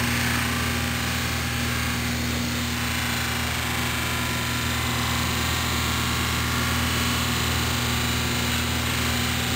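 Bench buffing machine running steadily, its motor humming, with an even hiss from the Norwalk juicer's metal feed tube being pressed against the spinning buffing wheel to polish it.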